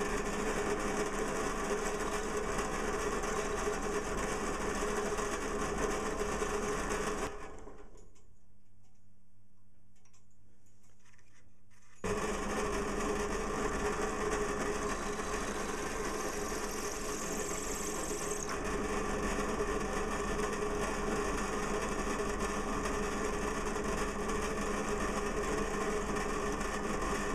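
Small bench drill running while drilling through a small steel pawl held in a vise. About seven seconds in its motor is switched off and runs down; about five seconds later it starts again abruptly and runs steadily.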